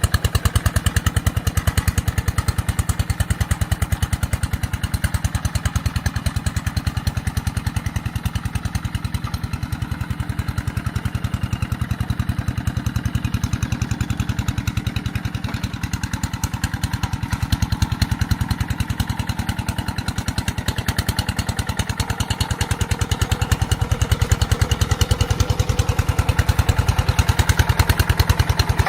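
Rice-field tractor engine running steadily while working a paddy, with a rapid even firing beat; it grows a little louder near the end.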